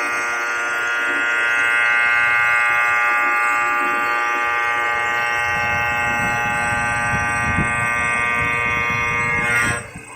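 CNC stone machining center running, giving a steady high-pitched whine with many even overtones. A rougher low noise builds up about halfway through, and the whine cuts off abruptly near the end.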